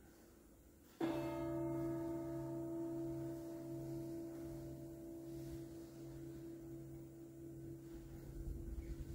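A musical note struck about a second in rings on and slowly fades, its higher overtones dying away first.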